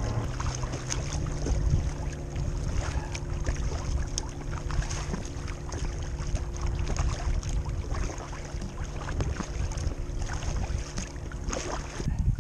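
Choppy sea water lapping and splashing irregularly around the hull of a paddled inflatable kayak, with wind buffeting the microphone, a gust rumbling in near the end.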